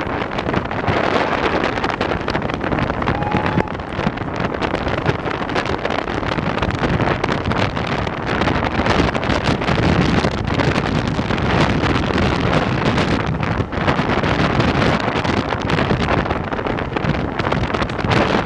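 Heavy, uneven wind noise on the microphone held out of the window of a moving train's rear coach, over the rumble of the train running along the line. The locomotive is barely heard through the wind.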